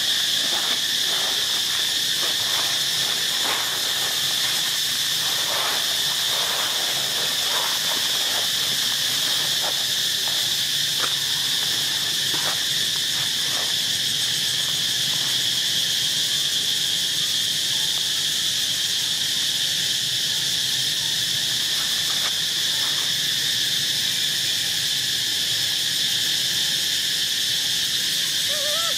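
Insect chorus: a steady, high-pitched drone.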